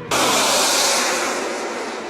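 A sudden loud burst of rushing noise that fades away over about a second and a half.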